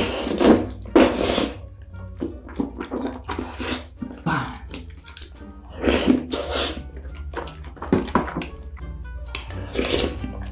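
Wet slurping and sucking as rice cakes and cheese sauce are drawn into the mouth, in short loud bursts every second or two, over soft background music.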